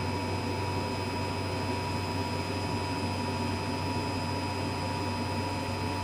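Steady hiss with a low hum and a thin, unchanging high whine, with no distinct event: background noise of the launch-commentary audio feed between callouts.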